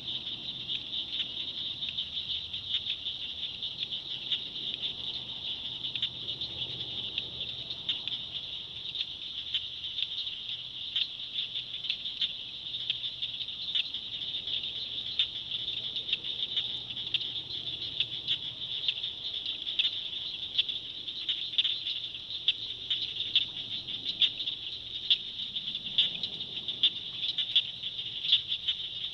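Swamp evening chorus of frogs and insects: a steady high-pitched trill with many sharp clicking calls over it, more frequent in the second half.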